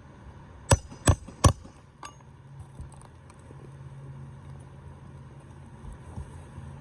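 Hammer striking three times in quick succession, each blow sharp and about half a second apart, followed by a few lighter knocks. A low steady hum runs underneath.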